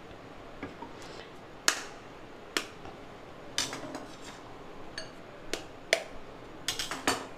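Sparse light clicks and knocks of kitchen dishes and utensils being handled around a glass mixing bowl, about a dozen spread over several seconds, with a quick cluster of taps near the end.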